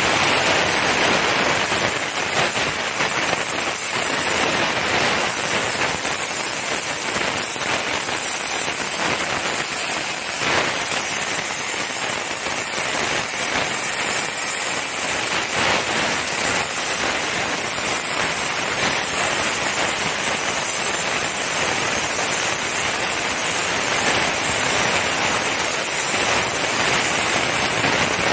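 CNC plasma cutter torch cutting steel plate: the plasma arc gives off a steady, loud hiss.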